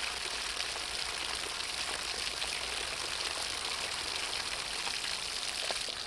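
Steady rushing hiss of water jetting from a garden hose and spraying off an egg hung on a string in the stream.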